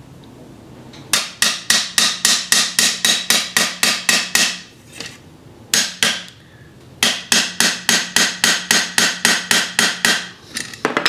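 A small hammer tapping a steel pin into the front end of a Sheridan Streak air rifle's pump tube: two runs of quick, ringing metal-on-metal taps, about four a second, with a single tap between them and one more near the end.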